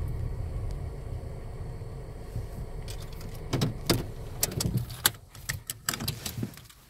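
Car's engine and road rumble dying down as the car rolls to a stop at the kerb. It is followed a few seconds in by a run of sharp clicks and knocks inside the cabin.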